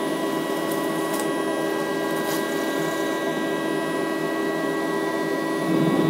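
CNC milling machine spindle running with a steady whine as its milling cutter chews through a raw beetroot, with a few sharp ticks in the first half. Near the end the cutting gets rougher and louder.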